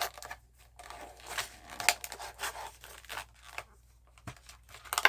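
Plastic blister packaging of a diecast model car being cut and torn open, crinkling and crackling in irregular bursts.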